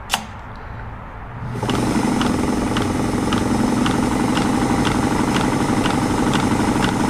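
Kenmore 1301 sewing machine, freshly oiled after its needle bar was cleaned and reinstalled: a sharp click, then about a second and a half in the motor runs up and the machine runs steadily at speed, with a regular light tick about twice a second over its running.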